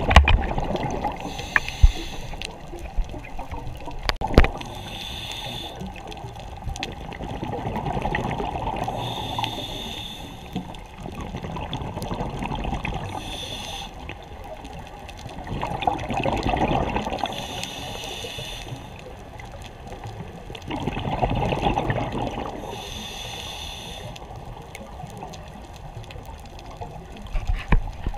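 Scuba diver breathing through a regulator underwater: a hissing inhale about every four seconds, each followed by a gurgling rush of exhaled bubbles. Two sharp knocks come within the first five seconds.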